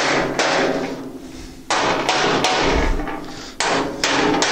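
Rubber mallet tapping plastic foot inserts into the corners of a sheet-metal grill cart base: about six sharp blows, a second or so apart at first and then closer, each one ringing through the steel cabinet.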